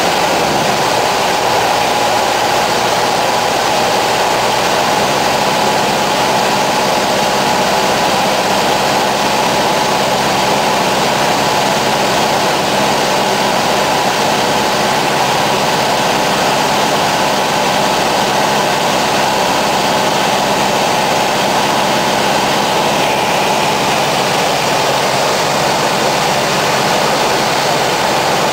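Cessna 150's Continental O-200 four-cylinder engine and propeller running steadily in flight, heard from inside the cabin as a loud, unbroken drone.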